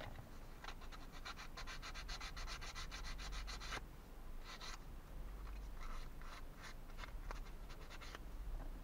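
Hand sanding the edge of a small thin plywood kit piece. It makes a fast run of rasping strokes, about seven a second, for around three seconds, then a few shorter, slower groups of strokes.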